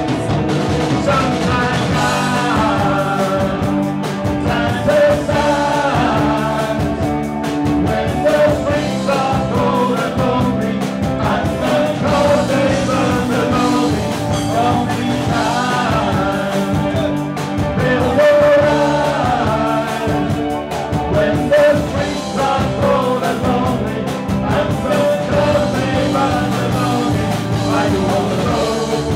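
Live rock band playing: a man singing into a microphone over electric guitar, bass guitar and drums.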